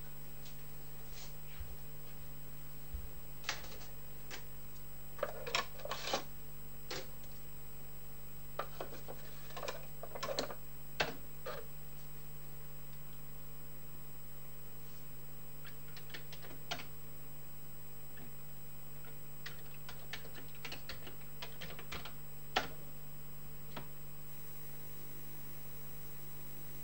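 Commodore 64 keyboard being typed on in a few short bursts of key clacks, with a few single clicks in between, over a steady low hum.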